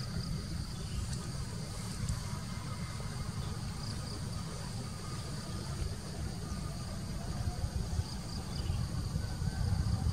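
Insects chirring steadily at two high pitches, over a low, unsteady rumble.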